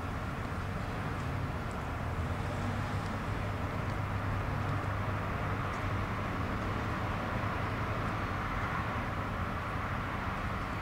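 Steady low drone of the cargo ship's diesel engine running as she gets under way, with a constant hiss over it.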